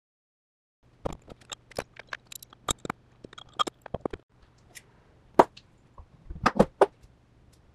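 After about a second of silence, irregular sharp metallic clicks and knocks as a VW air-cooled engine's crankshaft, with its four connecting rods fitted, is handled on a bench and the steel rods are swung and set into position.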